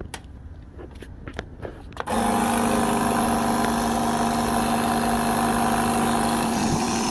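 A few clicks on a portable air compressor's control panel as it is set to 30 psi. About two seconds in, its motor starts and runs steadily, pumping air into a hand-pump garden sprayer tank to pressurise it.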